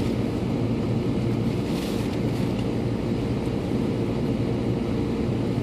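Winter storm wind buffeting the microphone: a steady low rumble, with a faint brief hiss of a gust about two seconds in.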